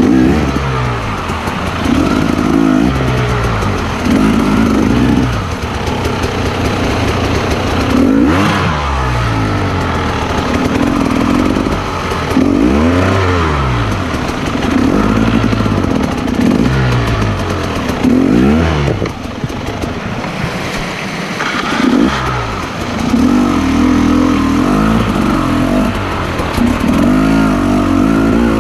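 Motorcycle engine revving up and easing off over and over, its pitch rising and falling every second or two, as on a trail ride.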